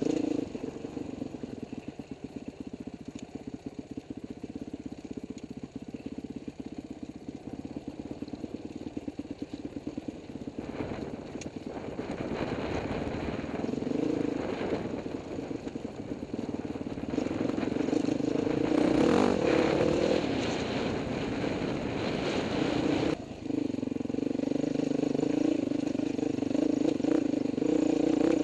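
Dirt bike engine running while riding over a rocky trail, at low revs at first, then pulling harder and louder from about halfway, with a short drop in revs about three quarters of the way in.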